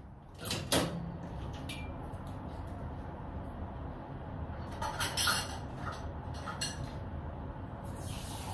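Kitchen clatter while coffee is made: a cupboard door knocking and dishes and utensils clinking in a few sharp knocks, over a steady low hum. Near the end a tap starts running.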